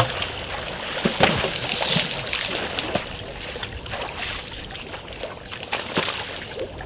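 Water splashing and sloshing irregularly as African elephants wade and drink in a shallow waterhole.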